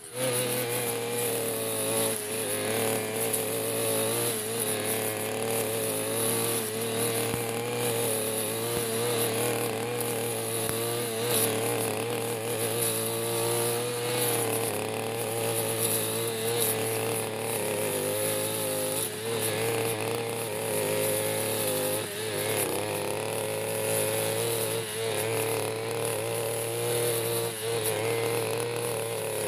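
Backpack brush cutter's small engine running steadily at high speed, its pitch wavering slightly as the spinning blade cuts through dense, tough grass.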